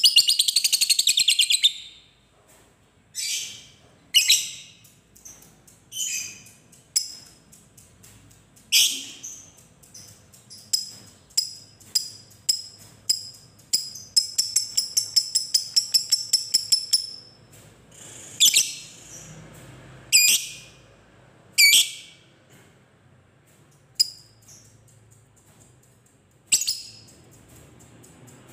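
Lovebird singing: long, rapid chattering trills of fast repeated high notes (the chatter keepers call ngekek). One trill comes at the start and a longer one runs about eight seconds midway, between short shrill single calls.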